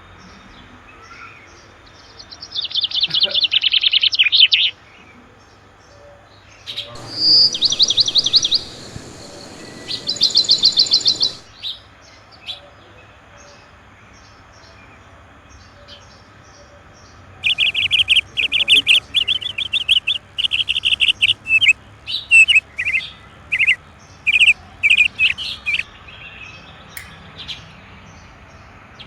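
A songbird singing in bursts of rapid, high repeated notes, like fast trills. The bursts come three times with quiet pauses between, the last a longer run of phrases that breaks into separate notes near the end.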